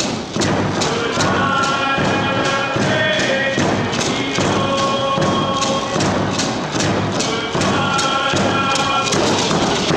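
Northwest Coast Native dance song: a drum struck in a steady beat, about three strokes a second, with voices singing long held notes over it.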